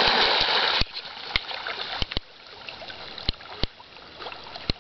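Heavy water splashing as a golden retriever charges into a pond, stopping abruptly a little under a second in. Then come quieter water sounds as the dog swims out, with a few sharp clicks or knocks scattered through.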